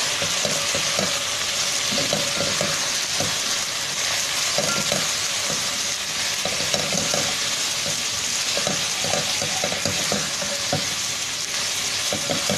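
Diced cabbage, capsicum, carrot and chicken sizzling in hot oil in a non-stick pan, stirred with a spatula in quick, irregular scraping strokes over a steady sizzle.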